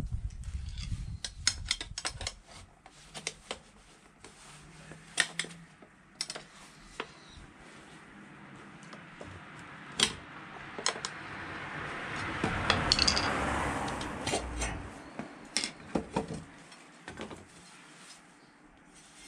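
Metal tools and small parts clinking and knocking as they are handled, with a rough rushing noise that swells for several seconds in the middle and then fades.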